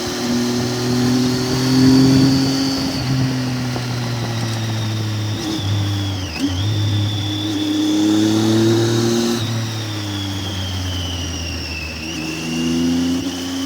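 Triumph Tiger 800's three-cylinder engine running under way, its pitch climbing slowly and then stepping down several times.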